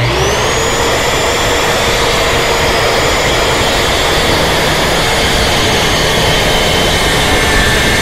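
Skil corded circular saw spinning up with a quick rising whine, then running steadily at full speed as its blade cuts through a 1x12 lumber board.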